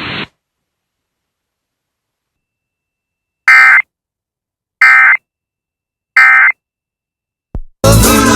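Three short, buzzy bursts of SAME digital data tones from a NOAA Weather Radio broadcast, about a second and a half apart, after some three seconds of silence. They are the end-of-message code that closes the weekly test message. Music cuts in abruptly near the end.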